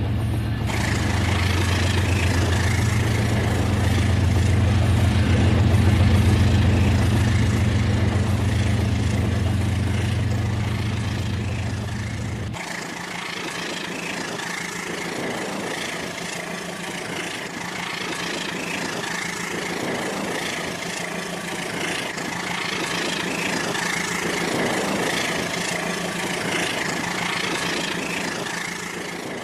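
Rail King toy train running on its track, a steady motor whir and rattle. A deep low drone under it cuts off suddenly a little under halfway through.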